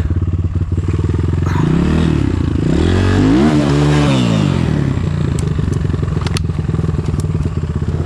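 Enduro motorcycle engine running with the throttle blipped twice, once lightly and then a bigger rev about three seconds in that rises and falls back, as the bike struggles for grip on slippery ground. A few sharp clicks come later.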